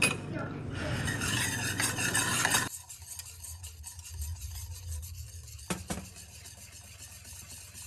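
A wire whisk stirring a thickening paprika roux-and-stock sauce in a steel pan, a rapid scratchy whisking over the simmering sauce. A little under three seconds in it drops to much quieter, with two light taps near six seconds.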